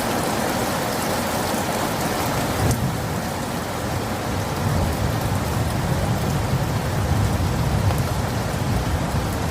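Steady heavy rain, with a low rumble of thunder building from about halfway through.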